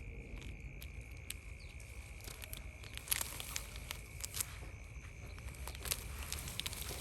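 Scattered rustles and light clicks, a few sharper ones around three and six seconds in, over a steady high-pitched drone and a low rumble.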